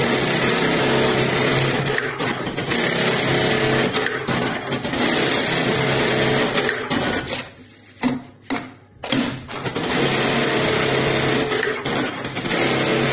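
Automatic programmable pattern industrial sewing machine running and stitching: a steady, dense mechanical whir over a constant hum. Just past halfway it goes quiet for under two seconds, with a couple of clicks, then starts up again.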